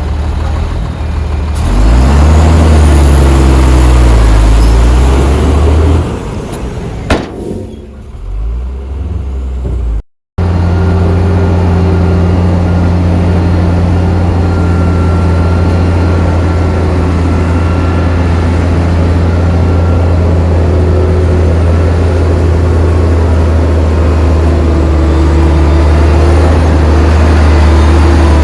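Heavy diesel engine of earth-moving machinery, revving up and down under load for a few seconds, then easing off. After a brief break about ten seconds in, it runs loud and steady at an even speed.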